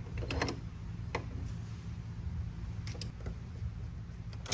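A handful of separate light clicks as a 7/16 wrench turns a nylock nut tight on the bolt holding a bimini-top mounting bracket to the pontoon railing, over a steady low hum.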